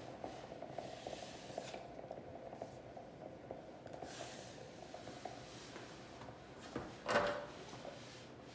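Standing garment steamer running with a steady hum and a faint crackle of boiling water. About seven seconds in there is a single short, louder scuff.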